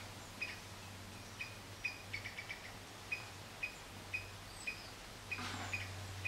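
A small bird repeating a short, high chirp about twice a second, with a quick run of chirps about two seconds in. A brief rustling noise comes near the end.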